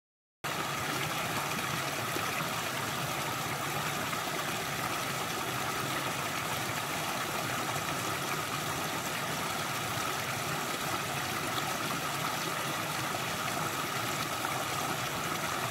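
Small rocky stream pouring steadily over a low cascade of stones, a continuous splash and trickle that starts after a brief moment of dead silence.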